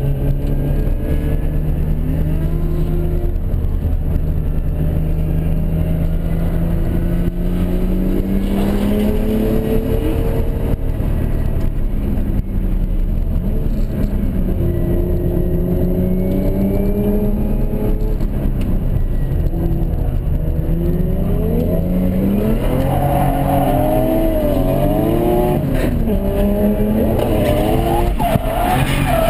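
Turbocharged Toyota 1JZ straight-six in a drift-built Mark II, heard from inside the cabin while drifting: the engine holds a steady note at first, then revs up and down repeatedly, with faster, choppier rev swings near the end.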